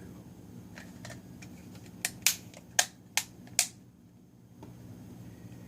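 Five sharp clicks in quick succession, about two to three and a half seconds in, from the iPhone 5s and its plastic case being handled.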